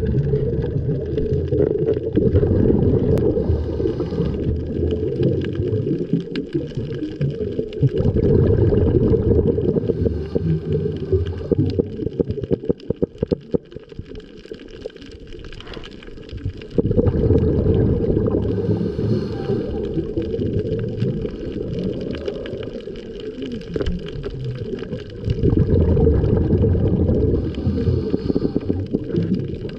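Muffled underwater water noise heard through a camera housing: a deep rumbling wash that swells and fades every several seconds, with a quieter, crackly lull about halfway through.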